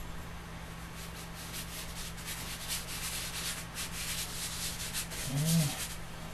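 Lecturer's chalk rubbed and stroked rapidly across a dark drawing surface in a run of quick, scratchy strokes as colour is built up, with a short low hum of a man's voice near the end.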